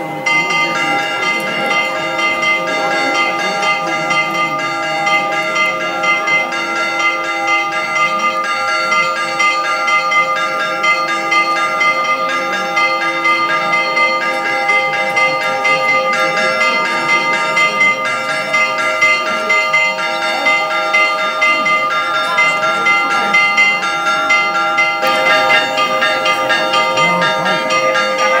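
Church bells ringing continuously in a rapid, dense peal, many overlapping tones struck over and over. This is the bell-ringing for a Greek Orthodox litany procession.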